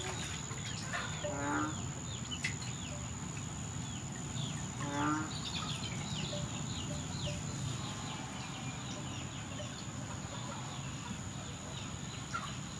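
Chickens clucking, with a falling call about a second and a half in and another about five seconds in. Quick high chirps come in between, over a steady high-pitched whine.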